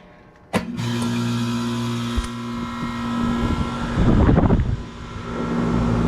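Goodman central air conditioner's outdoor condensing unit starting up with a sudden clunk about half a second in, then running with a steady hum from the compressor and condenser fan. A brief louder rustling noise around four seconds in.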